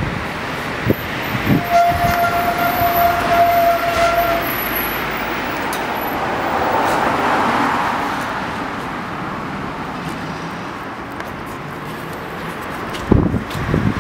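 Street traffic with wind buffeting a handheld microphone, and a car passing about halfway through. Near the start a steady tone sounds for about three seconds.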